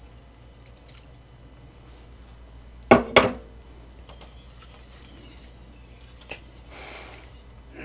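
Wire whisk stirring gravy in a stainless steel skillet: faint scraping, clicking and sloshing of metal in thick liquid. About three seconds in come two sharp metal clanks in quick succession, each with a brief ring, the loudest sound.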